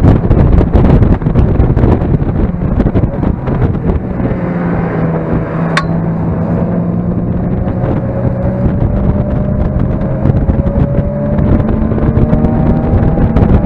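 Mazda MX-5 engine driven hard, with heavy wind noise on the microphone. Partway through, the engine note drops as the car slows, then climbs steadily as it accelerates again.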